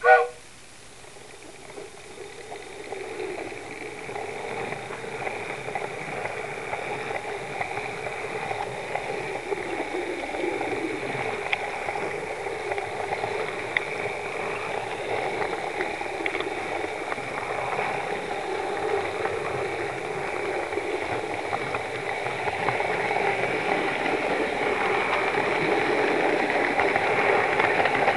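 HO scale model 4-4-0 steam train running on its track, heard from on board: a steady rushing, hissing run noise that grows slowly louder. A short whistle toot sounds right at the start.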